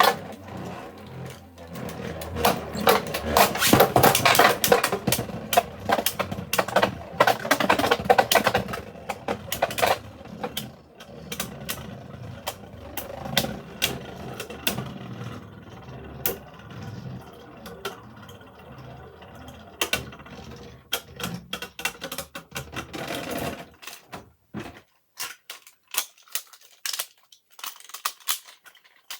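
Two 3D-printed Beyblade spinning tops whirring and clashing in a stadium, a fast run of clicking collisions over the spinning noise. The spinning dies away after about 24 seconds, leaving a few scattered clicks.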